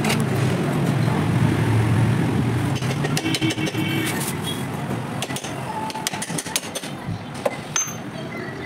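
Metal clicks and clanks from a new steel centre stand on a Splendor Pro motorcycle being swung by hand on its pivot and spring. A low motor-vehicle rumble runs under it for the first few seconds, then fades.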